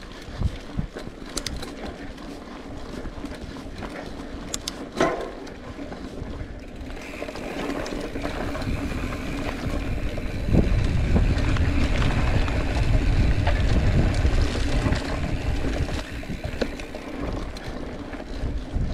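Cross-country mountain bike rolling along a dirt trail: tyre noise on the ground with clicks and rattles from the bike, and a short rising squeak about five seconds in. A louder low rumble from about halfway through, easing off near the end.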